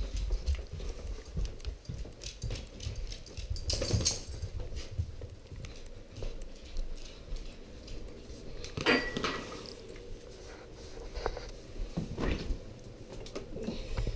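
Footsteps on a hard floor and camera handling noise, with scattered light clicks and two louder clinking rattles, about four and nine seconds in.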